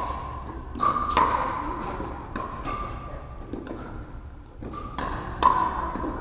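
Pickleball rally: a string of sharp pops from paddles hitting the hollow plastic ball and the ball bouncing on the hardwood floor, about eight or nine hits, each with a short ring that echoes in the gym hall.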